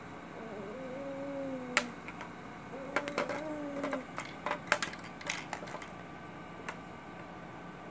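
Sharp plastic clicks and taps of a TV remote control as a baby grabs it and presses its buttons, coming in an irregular cluster in the middle. Before and among the first clicks, a baby makes two drawn-out cooing sounds.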